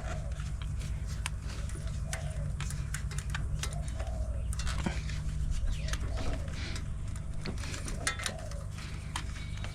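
A bird cooing several times in short, evenly spaced calls, over a steady low hum, with scattered light clicks and rustles from hands working wiring into place.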